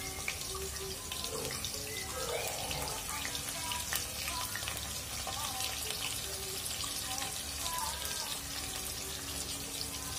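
Sliced onions frying in hot oil in a pressure-cooker pot, a steady crackling sizzle.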